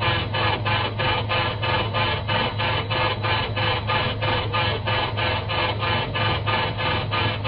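Engine of a second-generation Mitsubishi Eclipse/Eagle Talon being cranked over by the starter motor. It turns over in an even rhythm of about four pulses a second over a steady starter hum and does not fire: a no-start condition.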